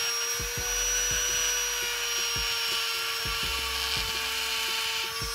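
Chicago Electric angle grinder running steadily, its motor whining over a rough hiss as it grinds down a protruding lug on the front steering knuckle so the brake caliper adapter sits flush.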